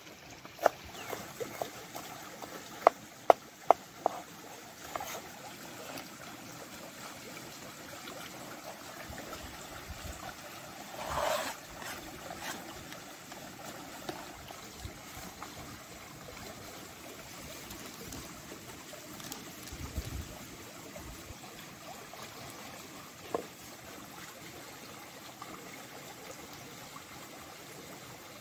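Cleaver chopping herbs on a wooden cutting board: a few sharp knocks in the first four seconds, then a steady even hiss with one louder scraping sound about eleven seconds in.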